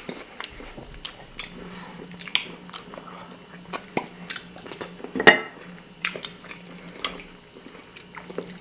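Close-up mouth sounds of people eating stewed pork rib calderita: chewing with scattered short wet clicks and smacks, the loudest a little past halfway. A faint steady hum sits underneath.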